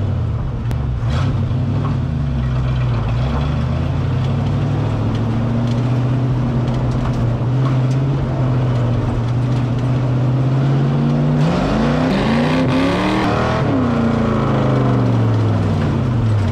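V8 engine of a 1938 Chevrolet coupe dirt-track modified race car, heard from inside its stripped cabin while driving at a steady pace. About eleven seconds in the revs climb sharply, then fall away over the next couple of seconds.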